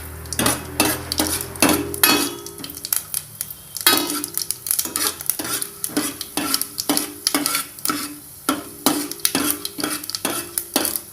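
Tempering spices (urad dal, mustard seeds, chana dal) frying and sizzling in hot oil while a metal spoon stirs them, clinking against the pan a few times a second and making it ring briefly.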